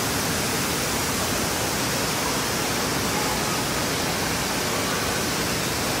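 Steady rush of water pouring and flowing from an indoor water park's play-structure water features, an even, unbroken hiss.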